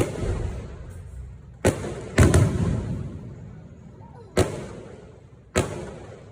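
Fireworks exploding: six sharp bangs spread over about six seconds, two of them in quick succession, each followed by a rumbling echo.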